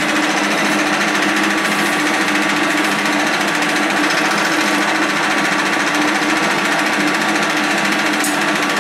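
1K62 screw-cutting lathe running steadily: a constant mechanical hum with a steady higher whine over it.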